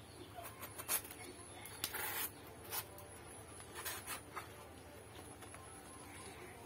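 Fresh banana leaf rustling and crackling as it is folded and handled by hand, in a few short bursts, the longest about two seconds in.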